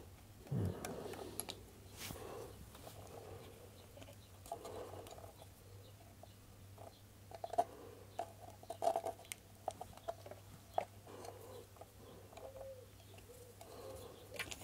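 Scattered light clicks, taps and rubbing of hard plastic parts and a screwdriver being handled while a small food chopper is reassembled, over a faint steady low hum.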